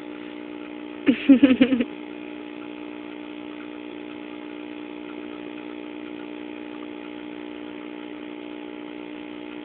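Steady electric hum of an aquarium pump running beside the fish tank. A short vocal sound breaks in about a second in.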